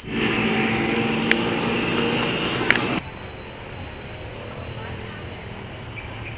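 Outdoor roadside sound: a vehicle running close by, with voices, and two sharp clicks. About three seconds in it cuts abruptly to quieter street ambience.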